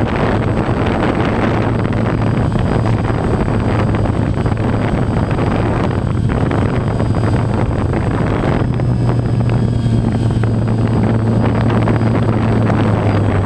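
DJI Phantom quadcopter's electric motors and propellers running in flight, picked up by the GoPro mounted on the drone: a steady low hum under a rushing noise of prop wash and wind on the microphone.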